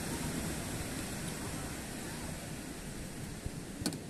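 Steady wind rushing over a phone's microphone, with a sharp click near the end.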